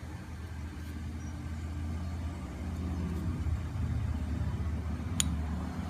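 A steady low machine hum, swelling slightly midway, with one sharp click about five seconds in.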